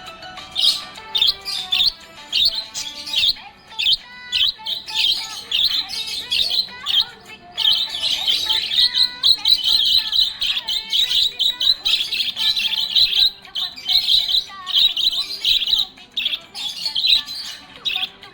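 Budgerigar chirping and warbling in quick, dense runs of short high notes, busiest in the middle, with faint music underneath.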